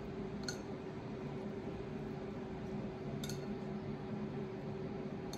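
Two light clinks of plates being handled while cooked chicken pieces are placed by hand onto a salad platter, one about half a second in and one about three seconds later, over a steady low hum in the room.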